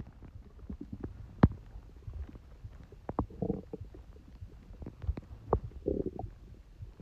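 Human stomach gurgling and rumbling: a low rumble throughout, short sharp pops, and two longer gurgles about three and a half and six seconds in.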